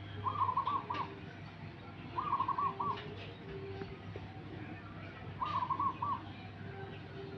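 Zebra doves in breeding condition cooing: three short phrases of four or five quick, rolling notes, each under a second long, a couple of seconds apart.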